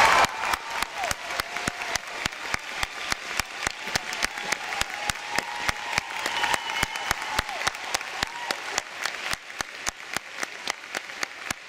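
Theatre audience applauding, the claps falling into a steady rhythm in unison at about three a second, with a few whoops near the middle, slowly fading.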